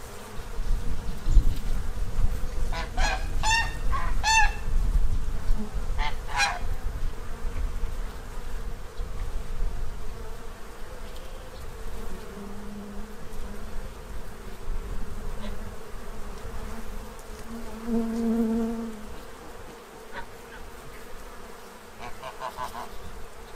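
Honey bees buzzing, with single bees flying close past twice in the second half. Farm geese honk a few times in the first several seconds, over a low rumble.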